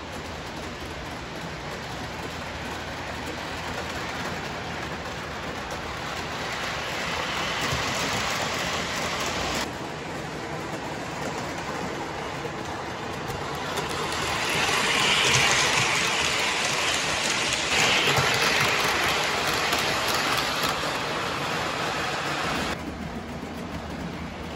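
MTH model Nickel Plate Berkshire steam locomotive and its passenger cars running on model track, a steady rushing, rolling noise that swells as the train comes close and drops off suddenly near the end.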